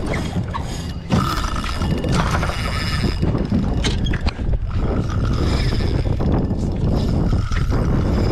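Penn Slammer spinning reel's drag buzzing in repeated short spurts as a hooked sailfish strips line off it, over steady wind and water rush.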